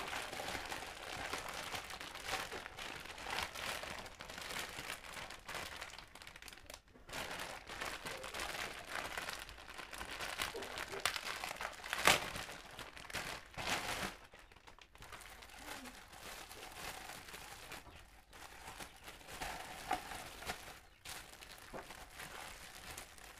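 Clear plastic bag and film crinkling and rustling as a helmet visor is unwrapped by hand, with a sharp snap about halfway through.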